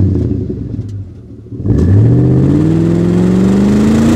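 Car engine running at a steady low pitch, then revving up from about two seconds in, its pitch climbing steadily as it accelerates.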